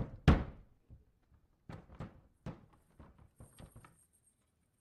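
A sharp, loud thud, followed by a scattered run of lighter knocks and thumps. A faint high-pitched whine comes in near the end.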